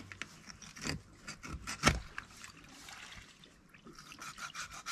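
A knife scraping and cutting along a barracuda on a cutting board, with a few knocks against the board. The loudest is a sharp knock about two seconds in, and the scraping picks up near the end.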